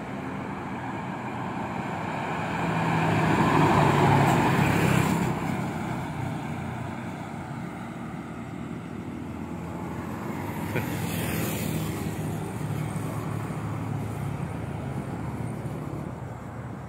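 An express coach bus passing close by, its engine and tyre noise swelling to the loudest point about four seconds in and then fading as it pulls away. A motorcycle rides just behind it, and a smaller second swell of vehicle noise follows about ten seconds in.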